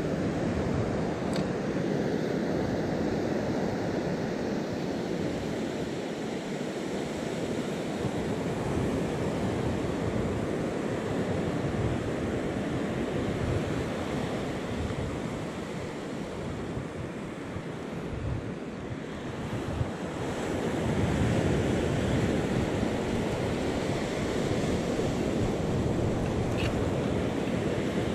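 Surf breaking and washing up a sandy beach in a steady rush, with wind on the microphone; the surf grows louder about twenty seconds in.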